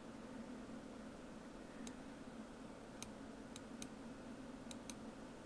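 A few faint, sharp computer mouse clicks, about six of them, scattered through the second half over a steady low hum and hiss.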